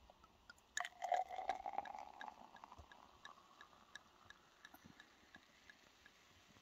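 A sparkling drink poured from a bottle into a crystal flute. The pour starts about a second in, its tone rising as the glass fills, with a fine crackle of popping bubbles that goes on as the foam settles.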